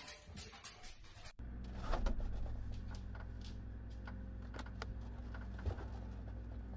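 A dog's paws pattering on wooden stairs in quick light steps, cut off after about a second and a half. Then a steady low hum with scattered light clicks and knocks of bottles being shifted inside a refrigerator.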